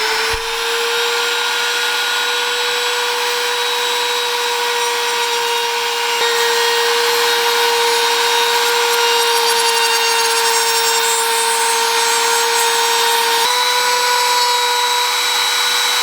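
Handheld electric woodworking power tool running at a steady high pitch as it rounds over the edges of a wooden stool seat, with a slight change in pitch near the end.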